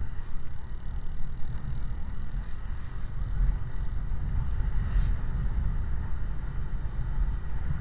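Steady vehicle noise while riding in traffic: a dense low rumble of engine, road and wind on the microphone.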